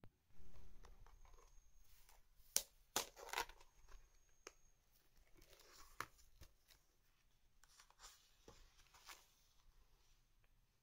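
Paper pages of a spiral-bound Rollbahn notebook being opened and turned by hand, its clear plastic cover rustling. A cluster of sharp snaps and clicks comes between about two and a half and three and a half seconds in, then lighter page rustles and a few single clicks.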